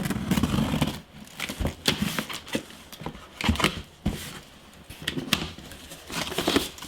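Computer-part packaging being handled and opened: crinkling and tearing of box and wrapping, with scattered clicks and knocks.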